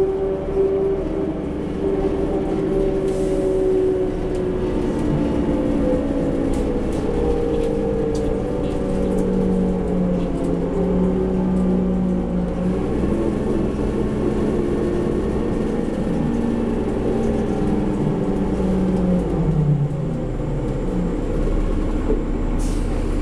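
Inside a 2004 New Flyer D40LF diesel transit bus under way: the Cummins ISL engine and ZF Ecomat automatic transmission running with a whine whose pitch drifts up and down as the bus changes speed. About twenty seconds in the pitch falls.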